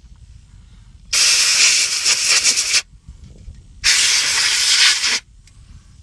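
Aerosol can of brake cleaner spraying in two long bursts of hiss, each over a second long, with a short pause between.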